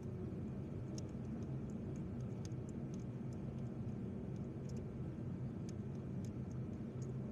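Faint, scattered clicks of hand tools working on spark plugs, over a steady low hum.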